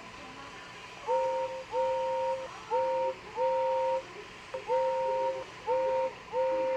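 A whistle-like tone sounding in seven short blasts, each about half a second to under a second long, loosely grouped in pairs.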